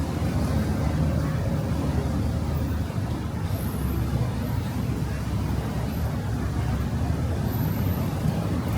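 Steady rumble of heavy city road traffic, cars and buses running along a busy street. There are faint, brief high squeaks a few times.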